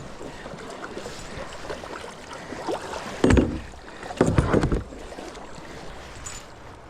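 Kayak being paddled on a river: paddle and water noise, with two louder, heavy bursts about three and four seconds in.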